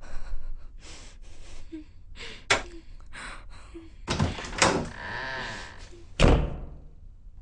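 A bolted door banging several times, with thuds about two and a half and four seconds in and the heaviest bang about six seconds in. Between them a woman sobs and gasps in fright.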